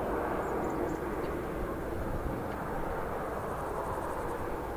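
Steady outdoor background noise, a low rumble with a hiss, and a few faint high chirps about half a second in.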